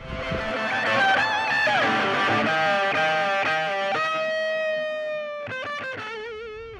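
Guitar music: held lead notes that bend and waver with vibrato, then a quick run of notes about five and a half seconds in, ending on a long wavering note.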